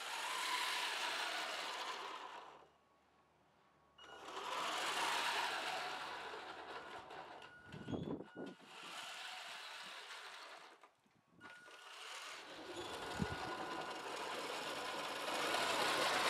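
Homemade 1/6-scale RC truck's motor and 3D-printed gearboxes whirring as it drives, in three spells with short pauses between. A couple of low knocks come from the drivetrain and wheels.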